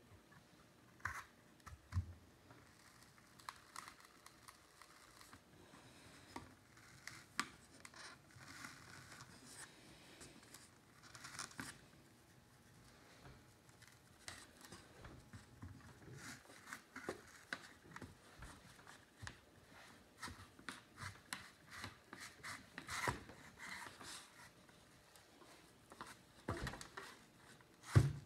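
Kitchen knife cutting the skin off a large apple: faint, irregular scraping and slicing strokes, with a few sharper knocks of the apple or knife against the table.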